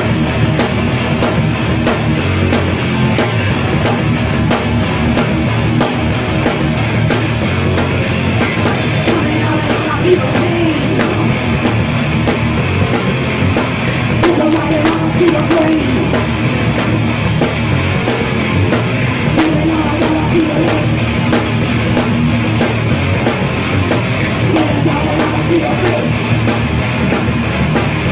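Live rock band playing loud and without a break: distorted electric guitars, bass guitar and a drum kit.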